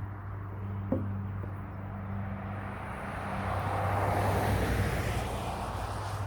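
A car passing by, its road noise swelling to a peak and fading away over a few seconds, over a steady low hum, with a single sharp click about a second in.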